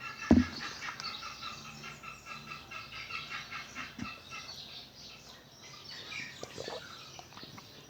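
Steady, rhythmic high-pitched chirping from a small animal, with a single sharp thump about a third of a second in.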